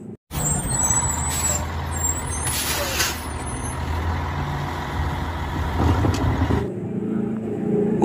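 Garbage truck's diesel engine running with a steady low rumble, with two hisses of air about one and a half seconds and three seconds in, typical of air brakes. The engine sound cuts off about two-thirds of the way through.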